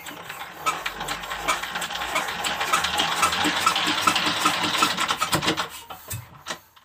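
Old diesel water-pump engine being hand-cranked, its parts clattering and clicking about three times a second as it turns over without catching. The clatter builds over the first few seconds and dies away near the end as the cranking stops.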